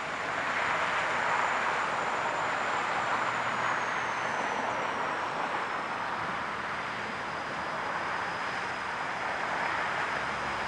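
Diesel-electric 81 class locomotive running as it approaches at the head of a cement train, a steady engine and rail noise. A thin high whine drops a little in pitch around the middle.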